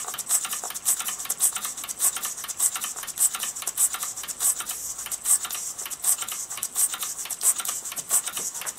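Mamod SP7 twin sleeve valve model steam engine running slowly, an even run of ticks a few times a second, as its speed is turned down at the regulator wheel.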